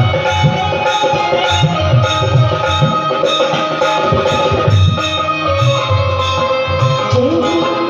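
Devotional bhajan music: a steady hand-drum beat under long held melodic tones, with no clear singing.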